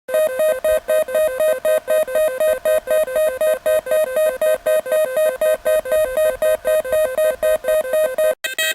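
Homebuilt six-oscillator drone machine putting out a rhythmic electronic beat, a pulsing tone about four times a second. Near the end it cuts out for a moment and switches to a different, busier rhythm.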